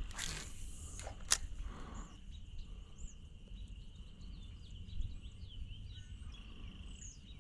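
Outdoor ambience: birds chirping over a steady high-pitched trill and a low rumble, with a sharp click about a second in.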